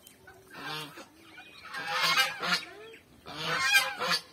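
Domestic fowl calling in several short bursts, loudest about two seconds in and again near the end.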